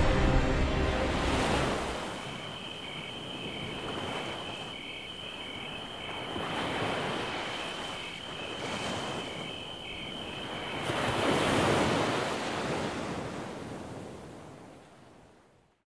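Sea waves washing ashore, the surf swelling and ebbing every two or three seconds, with a steady high trill and short chirps above it for most of the time, like crickets at night. It all fades out near the end.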